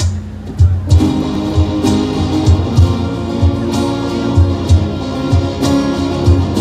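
Live band playing a song's intro: a cajón beats a steady low rhythm, and about a second in acoustic and electric guitars come in playing over it.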